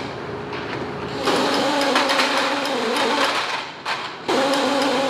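A small electric motor, as in a power tool, running steadily, louder from about a second in, stopping briefly near four seconds in and then running again.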